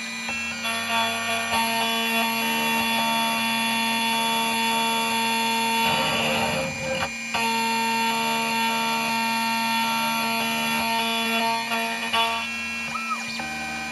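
Xhorse Dolphin key cutting machine milling a blank car key: a steady whine of several tones that shift in steps as the cutter travels along the blade, with a rougher patch and a brief dip about six to seven seconds in.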